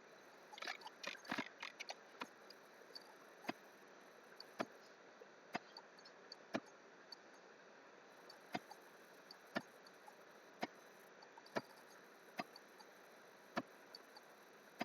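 Faint clicking of a computer mouse: a quick run of clicks near the start, then single clicks about once a second, over a low steady hiss.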